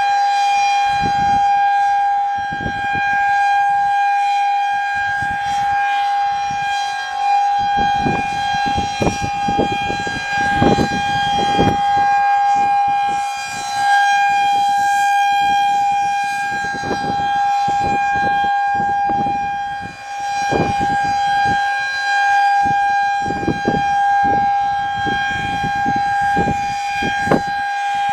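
Federal Signal 2001-SRN rotating outdoor warning siren sounding a steady alert: one loud tone holding a constant pitch, with irregular low rumbles over it.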